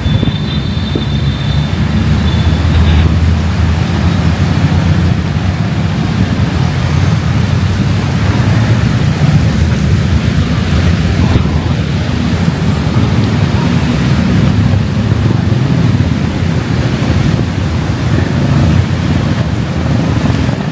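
Heavy rain mixed with steady city road traffic, a dense, continuous low rumble. A faint high thin whine sounds over it for the first few seconds.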